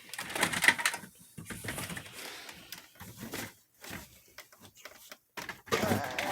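Irregular clicks, knocks and rustling of plastic toy guns being handled and set down.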